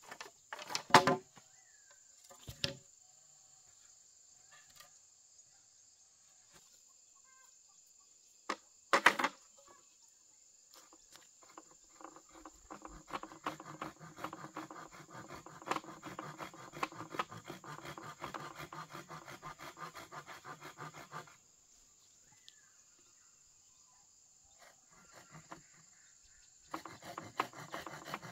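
Insects buzzing steadily high up. A couple of sharp knocks, then from about eleven seconds a rough, rapid scraping runs for about ten seconds and starts again near the end.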